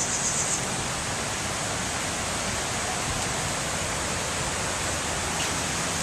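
Steady rush of flowing water. A high, fast-pulsing chirp stops about half a second in.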